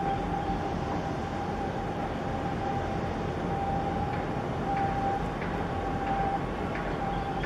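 Large container ship passing close by: a steady low mechanical rumble with a constant mid-pitched hum running through it, from its engines and machinery.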